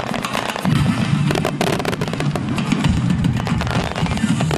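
Fireworks barrage going off in quick succession, many sharp bangs and crackles close together, over music.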